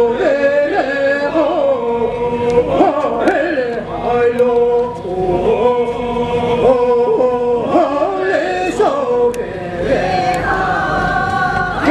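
A group of voices chanting a traditional Bobonaro circle-dance song from Timor-Leste, unaccompanied, holding long notes that step up and down.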